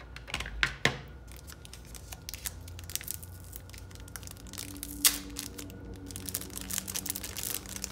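Crinkling and rustling of a clear plastic sleeve around a small travel paintbrush as it is handled, with scattered light plastic clicks and a sharper click about five seconds in.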